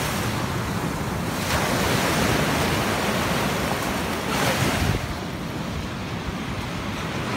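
Ocean surf washing up on a sandy beach, with wind rumbling on the microphone; the wash swells louder about one and a half and four and a half seconds in.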